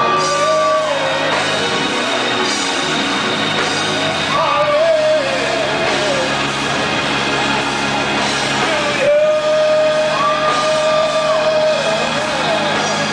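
Live church music with steady held chords, and a man singing long held notes over it through a microphone, loud and echoing in a large hall.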